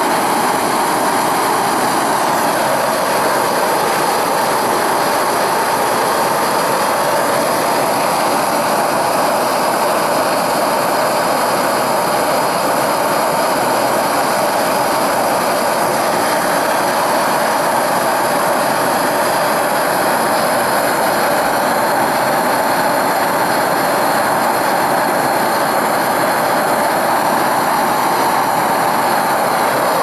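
Bernzomatic BZ8250HT propane hand torch turned up full and firing into a small insulated pipe furnace: a loud, steady rushing flame noise, heating a crucible of metal to melting.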